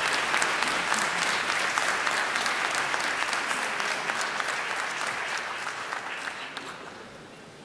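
Concert audience applauding, the clapping thinning out and fading away near the end.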